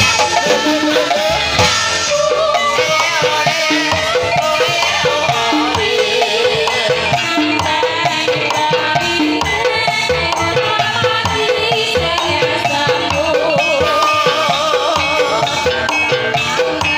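Javanese gamelan music for a kuda kepang (ebeg) horse dance: drums and struck metal-keyed instruments keep a steady rhythm under a wavering melody line.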